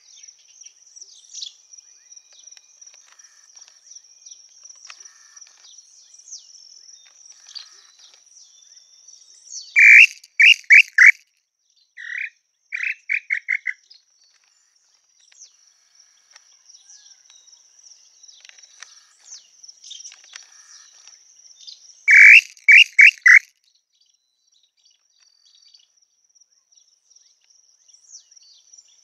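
Tataupa tinamou calls: a group of four loud, short whistled notes about a third of the way in, followed by a softer run of notes that speeds up, and a second group of four loud notes past the middle. A steady high insect drone runs underneath.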